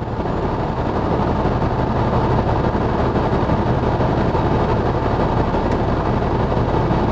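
Jaguar XF 3.0-litre V6 diesel engine running steadily: a constant low hum under a wide noise that swells slightly in the first second, then holds level.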